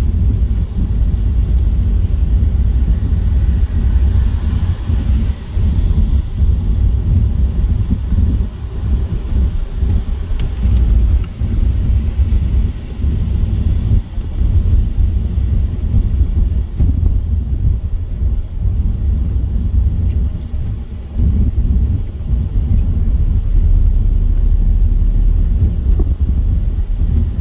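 Steady low rumble of a car travelling at motorway speed, with tyre and wind noise on a wet road and a brief swell of hiss about four seconds in.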